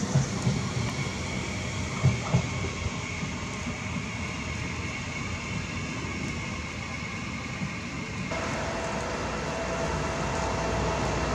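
Frecciarossa 1000 (ETR 400) high-speed electric train moving away, its low rumble and a few wheel knocks over the rail joints fading under a faint steady whine. About eight seconds in the sound cuts to a Trenitalia Pop regional electric train arriving, a louder steady run with a steady hum and whine that grows towards the end.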